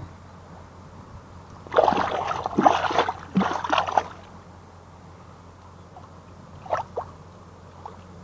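Water splashing and sloshing in a rapid, irregular flurry for about two seconds, starting a little under two seconds in, followed by two short faint sounds near the seven-second mark.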